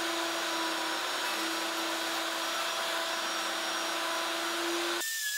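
Plunge router with a cove bit running steadily at full speed while routing a rounded pit into a maple board: a steady whine over a whirring hiss. About five seconds in it cuts abruptly to a thin, steady high whistle.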